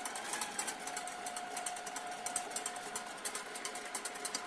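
Stand mixer running at medium speed, a steady motor whine with rapid irregular ticking, beating a warm chocolate-and-egg-yolk mousse base to cool it down.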